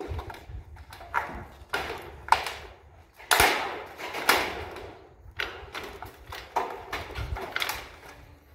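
Hammer striking a steel roofing sheet, about ten irregular metallic knocks with a short ring after each, the loudest about three and a half seconds in.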